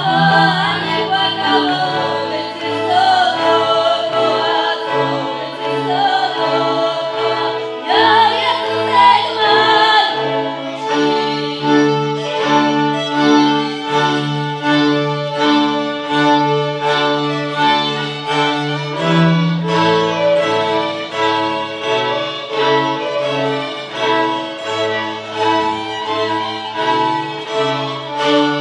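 Górale highland string band of several violins and a bowed bass playing a folk tune, with voices singing over the fiddles for about the first ten seconds, after which the strings play on alone in a steady rhythm.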